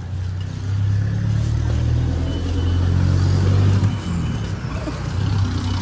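Motor vehicle engine running steadily as the vehicle drives along, heard from on board: a low drone that grows louder about a second in and dips briefly near four seconds.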